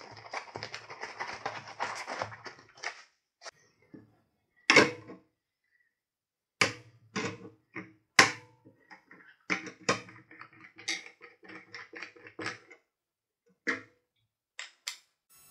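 Cardboard box and packing material rustling for about the first three seconds as a part is lifted out, then a series of separate knocks and clacks as hard plastic and metal parts are handled and set down on a board on a workbench.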